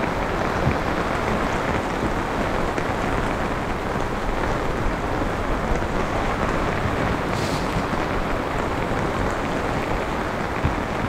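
Steady rain falling, heard from under a small boat's overhead canopy: a constant, dense patter with no engine running.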